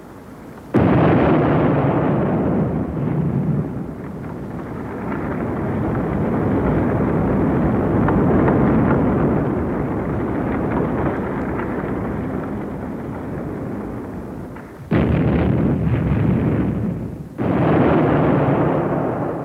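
Demolition of high-rise apartment blocks with explosive charges. A sudden blast about a second in is followed by a long rumble of the tower collapsing that slowly eases. Two more sudden blasts come near the end as charges go off at the base of another block.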